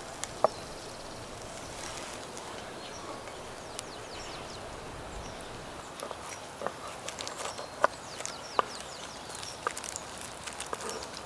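Quiet outdoor ambience with a steady faint background hiss, scattered light clicks and taps, and a few faint high chirps.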